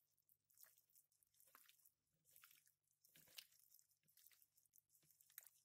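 Faint, irregular squelches of a gloved hand kneading raw pork medallions in olive oil in a mixing bowl.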